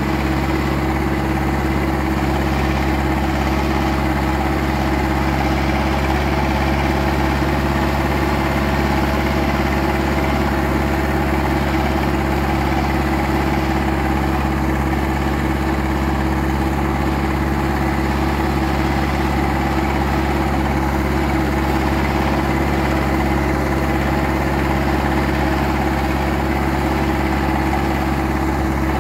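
Zetor 7340 Turbo tractor's four-cylinder turbo diesel engine running at a steady speed while plowing, with no change in pitch.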